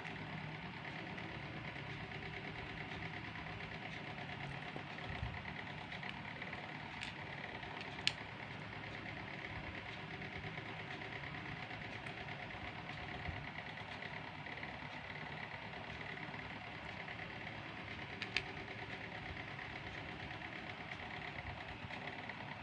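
A steady mechanical hum, like a small motor running, with a few short, sharp clicks, the loudest about 8 seconds in and another about 18 seconds in.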